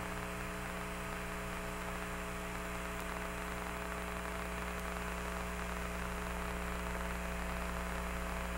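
Steady electrical hum with a hiss of static on an open Apollo air-to-ground radio channel, with no voice on it.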